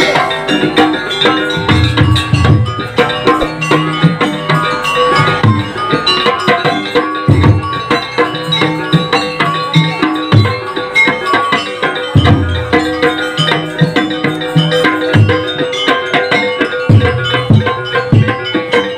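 Jaranan gamelan ensemble playing a fast sampak piece: hand drums and many quick strikes on ringing bronze metallophones, with heavy low gong strokes every few seconds.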